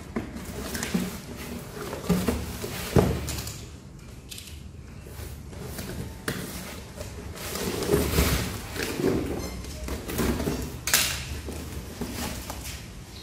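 Cardboard packaging being handled and opened by hand: irregular scraping and rustling with scattered knocks, the sharpest knock about three seconds in.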